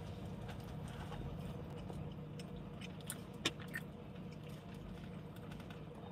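Low steady hum in a car's cabin, with a few faint clicks and taps, the clearest about three seconds in.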